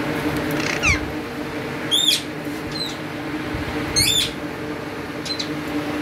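Alexandrine parakeets giving short harsh squawks, about five calls, the two loudest about two seconds apart, over a steady low hum.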